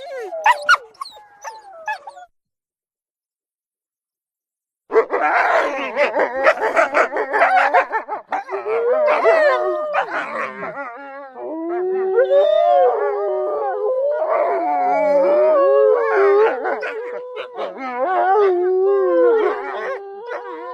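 Wolf pack sound effects standing in for a dire wolf: short yips and barks for about two seconds, then a gap of dead silence, then many wolves howling and yipping together, several wavering howls overlapping.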